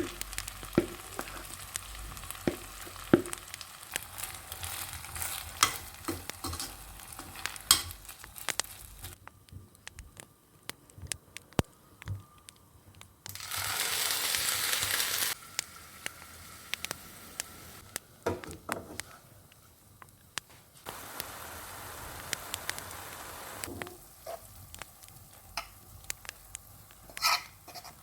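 Food frying in a pan, a steady sizzle with many sharp clicks and scrapes of a utensil stirring against the pan. Twice the hiss turns louder and steady for a few seconds, about halfway through and again a little later.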